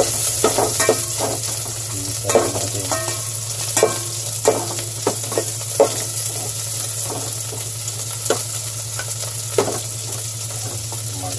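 Garlic and ginger sizzling in rendered chicken fat, stirred with a metal ladle that scrapes and clinks against the metal pot every second or two, some strikes briefly ringing.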